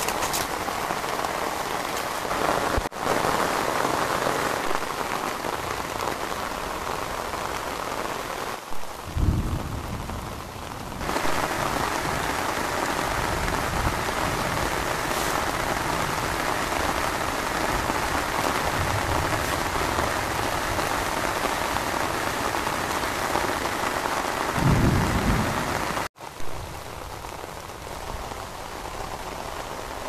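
Steady rain falling on maize leaves and surrounding vegetation, an even hiss. Two brief low rumbles come through, once about nine seconds in and again near the end.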